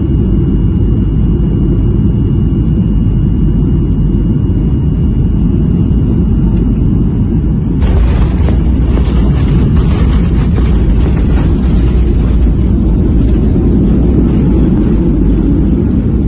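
Cabin noise inside a jet airliner on landing: a steady low rumble of engines and airflow on final approach, then about eight seconds in a sudden jump to a louder, hissier rumble as the aircraft touches down and rolls along the runway.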